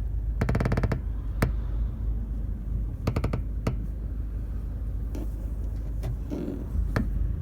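Rear seat backs of a 2018 Mercedes-Benz A-Class creaking and clicking as the car rolls over uneven ground, over a low rumble from the moving car: two short creaking rattles and several single sharp clicks. The creaks come only with the seats upright; the owner does not know the cause and suspects the plastic.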